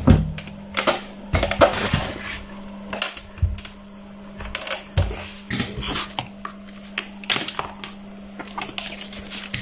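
Handling noise: irregular knocks, taps and rustles as hands move the probe cable and a paper sheet about a workbench. A steady faint hum runs underneath.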